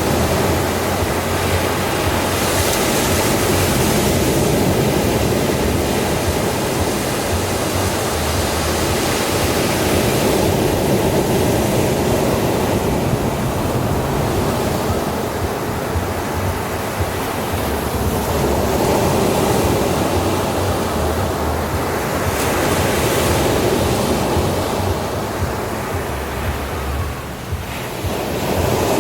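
Sea waves breaking on a beach: a continuous wash of surf that swells and eases every several seconds, dipping briefly near the end.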